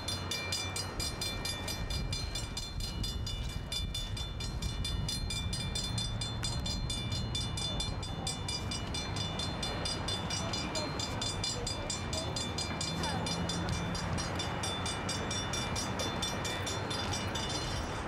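A train running past a grade crossing under a low rumble, while the crossing's warning bell rings rapidly and steadily.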